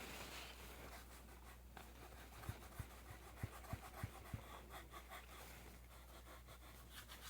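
Faint rubbing of an alcohol wipe over a Glock 17's polymer frame, cleaning off oil and grime before grip tape is applied, with a few soft knocks around the middle.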